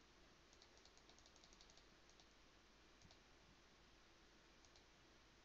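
Near silence, with a run of faint, quick clicks from working a computer about a second in and a few more later.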